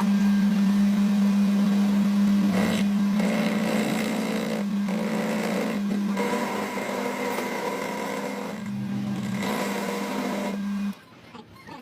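A small electric motor, as on a workshop power tool, running at a steady speed with a strong, even hum, switched on abruptly and cutting out about a second before the end.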